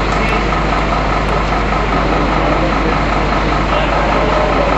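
Fire engine's motor running steadily as it pumps water to the hoses, a continuous loud drone with a low hum.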